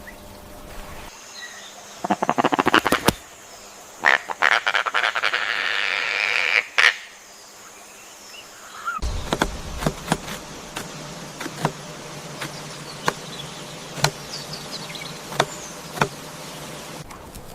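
An animal calling in rapid pulsed, croaking trills, then a series of sharp separate clicks or knocks about every second and a half.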